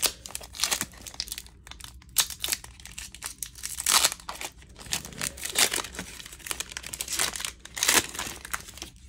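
Hockey card pack wrapping crinkling and tearing as it is opened by hand, in a run of sharp rustling bursts, the loudest about four and eight seconds in.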